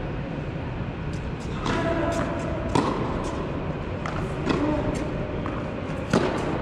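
Tennis rally on an indoor court: three sharp racket-on-ball hits and ball bounces that ring out in the big hall, the loudest near the end, over a steady low rumble.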